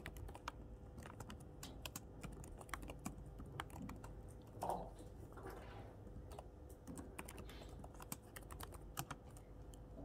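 Irregular keyboard typing and clicking on a computer, with one brief louder sound about halfway through.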